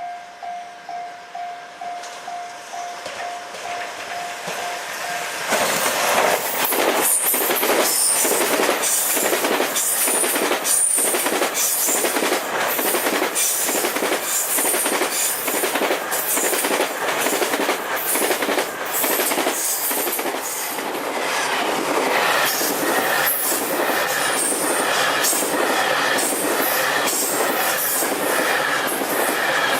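A level-crossing warning bell dings about twice a second as an approaching train grows louder. About five seconds in, the JR Freight M250 series Super Rail Cargo electric freight multiple unit reaches the crossing and passes at speed, a long, even rush of wheel clicks over the rail joints that continues to the end.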